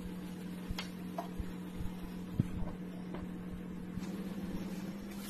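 Faint kitchen background: a steady low hum with a few soft clicks, one a little stronger about halfway through, around a pan of keema cooking on a gas stove.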